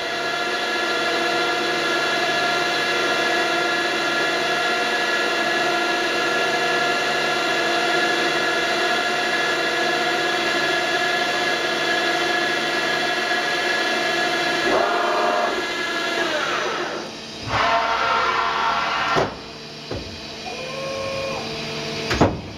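Heidenreich + Harbeck MC 40 horizontal machining center running: a steady machine whine with many overtones holds for about sixteen seconds, then winds down. Shorter motor runs follow, with a click and a loud clunk near the end.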